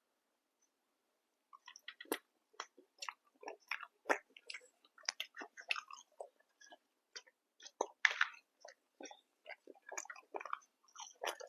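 A person chewing and biting food close to the microphone, a fast irregular run of wet mouth clicks that starts about a second and a half in.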